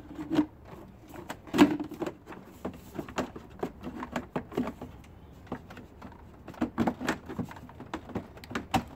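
Irregular hard clicks and knocks of plastic engine-bay parts being handled and fitted: the engine cover and intake air duct on a Mercedes M113 V8. The loudest knock comes about a second and a half in.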